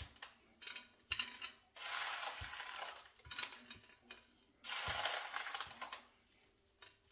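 Green peas being scooped by hand from a plastic container and scattered onto noodles in a casserole dish: rustling in two stretches, with scattered small clicks as peas drop onto the dish.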